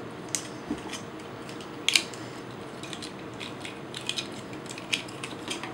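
Plastic parts of a MakeToys Visualizers transforming figure clicking and clacking as they are handled, rotated and pegged together, with scattered sharp clicks, the loudest about two seconds in.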